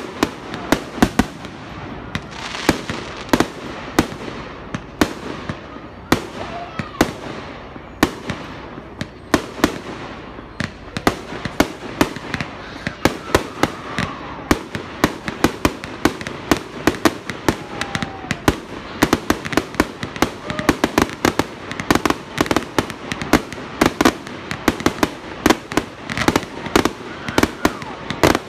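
Fireworks display: aerial shells bursting in a steady string of sharp bangs and crackles, coming much faster and denser in the second half, like a building finale.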